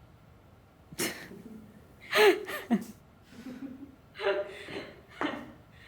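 A person's gasp about a second in, then a few short wordless vocal sounds with sliding pitch, like an 'ohh' and soft chuckles.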